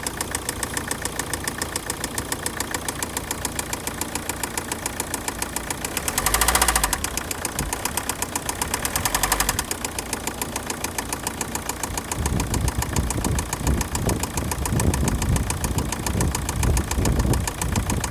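Opel/Vauxhall 1.7 CDTI (Z17DTL) four-cylinder diesel idling with an even, rapid ticking knock in time with the engine, briefly revved twice, about six and nine seconds in. The ticking is the engine knock the owner is trying to pin down, unsure whether it is really there. From about twelve seconds in a rougher, louder low rumble comes in.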